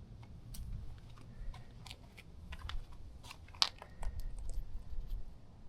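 Scattered small clicks and faint rustling over a low rumble, with one sharper click about three and a half seconds in.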